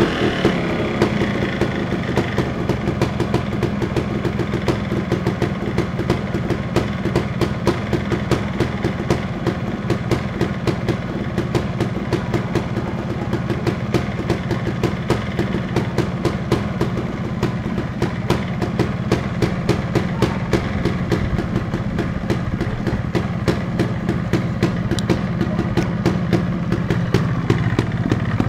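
Montesa Cota 260 trials bike's single-cylinder two-stroke engine idling steadily after a cold start, with a regular beat of firing pulses. The idle is very low, which the owner takes as a sign of good compression and no air leaks in the freshly rebuilt engine.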